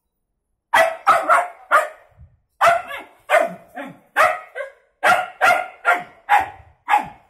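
Young black-and-white dog barking at a cat: about fifteen short, high-pitched barks in quick runs of two to four, starting just under a second in.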